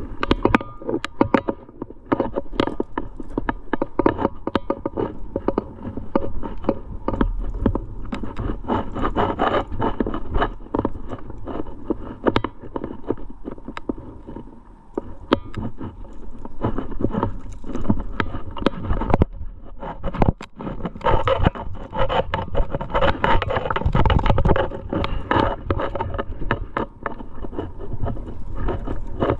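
Irregular clicks, clinks and scrapes from a trad climber moving across rock: carabiners and cams on the harness knocking together, and hands and shoes rubbing on the stone. The clatter thins out a little about halfway, then picks up again.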